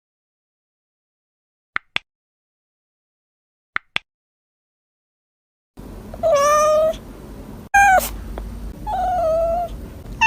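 Domestic cat meowing several times in drawn-out meows that rise and fall in pitch, starting a little past halfway. Before that there is silence broken only by two pairs of short clicks.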